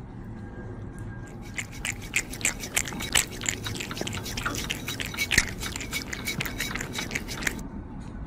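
A kitten smacking and lapping at a feeding syringe: quick, wet mouth clicks, several a second, starting a second or so in and stopping near the end.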